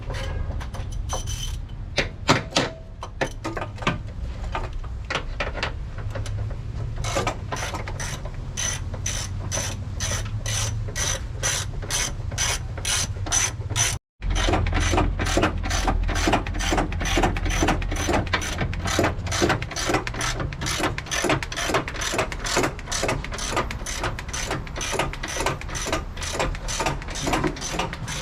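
A hand ratchet clicking in fast, even strokes, about three to four clicks a second, during work fitting the engine into the car. The first few seconds hold scattered metal clicks and knocks instead. The sound cuts out for an instant about halfway.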